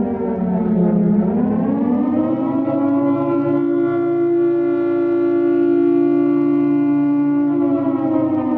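Emergency alert siren in the style of a civil-defence air-raid siren, wailing: its pitch dips about a second in, rises again over the next second or so, holds steady for several seconds, then begins to fall near the end.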